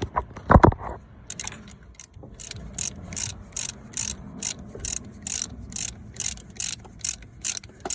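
Hand ratchet wrench clicking in quick, even back-and-forth strokes, about three a second, as a bolt is run down by hand on the car's A/C compressor. A short knock comes about half a second in, before the ratcheting starts.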